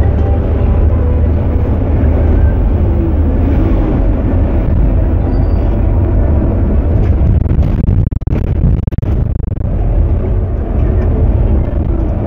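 Cabin noise of a Scania bus cruising at highway speed: a steady low engine drone with road and wind noise. The level drops briefly and unevenly about eight seconds in.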